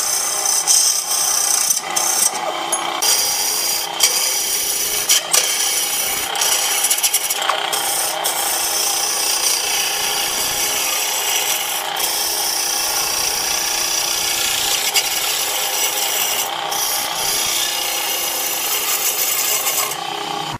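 Wood lathe turning a wooden blank while a hand-held turning chisel cuts into it: a continuous hissing scrape over the steady hum of the lathe's electric motor, broken by a few brief gaps.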